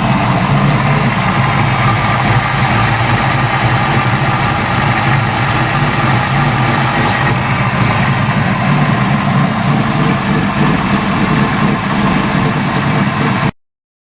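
Fox Body car's engine idling steadily, cutting off abruptly near the end.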